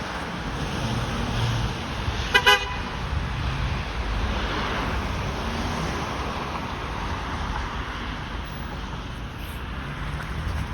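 A vehicle horn gives two quick short toots about two seconds in, over a steady rumble of city traffic.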